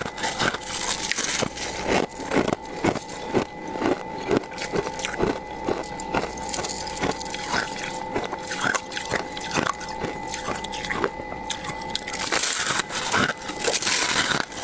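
Thick, crunchy frost build-up being scraped out of a freezer, crunching and crackling in quick, irregular strokes, with a longer, louder scrape near the end. A steady hum runs underneath.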